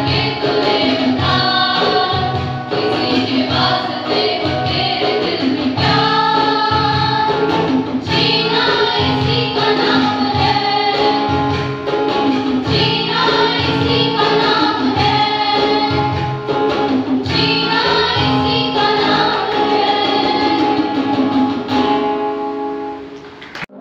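A group of students singing in chorus, mostly girls' voices, over an accompaniment of guitar and keyboard with a steady beat. The sound dips and fades just before the end.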